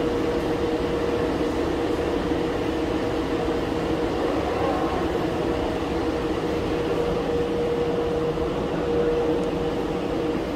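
Underground subway platform ambience: a steady rumble and hum with one steady tone running through it.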